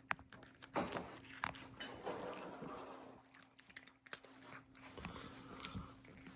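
An animal crunching and chewing treats: faint, irregular crisp clicks and crackles.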